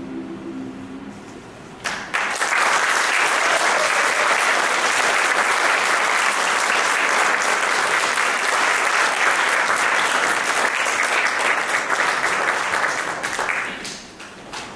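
A youth choir's final held chord fades out in the first second. About two seconds in, the audience starts applauding: steady clapping that tapers off near the end.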